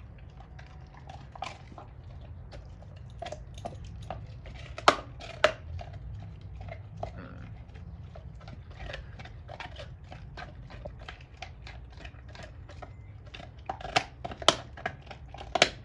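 Doberman gnawing a raw pork bone: chewing and crunching with sharp cracks of teeth on bone, two loud cracks about five seconds in and several more near the end.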